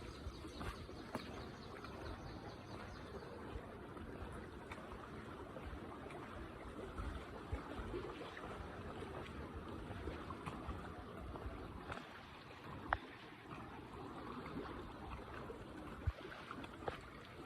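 Faint, steady rushing background noise with scattered light clicks, and one sharper tick about thirteen seconds in.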